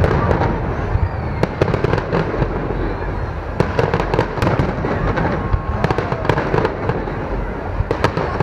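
Fireworks display: aerial shells bursting, with many sharp, irregular pops and crackles over a continuous low rumble.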